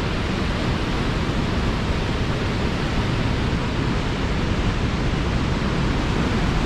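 Steady rushing of Box Canyon Falls, an 85-foot waterfall on Canyon Creek pouring into a narrow quartzite canyon.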